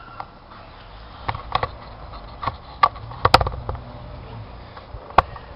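Scattered handling clicks and knocks, about eight at uneven intervals, the loudest a little past three seconds in, over a faint low hum.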